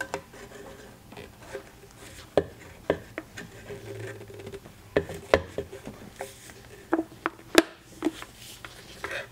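Flathead screwdriver prying a Kirby vacuum's fill tube off its plastic top bag connector: irregular scrapes, clicks and knocks, with a few sharper clicks as the tube is worked over the connector's lip.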